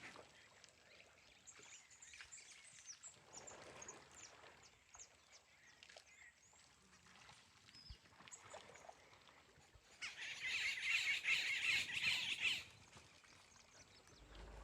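Small birds chirping on and off, then a loud, dense, rapidly repeating chatter about ten seconds in that lasts two to three seconds before dropping away.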